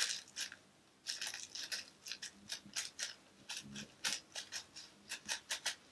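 Faint, crisp rustling of a sheet of Fenty Beauty blotting paper being pressed and rubbed over the nose and face, in a string of short bursts.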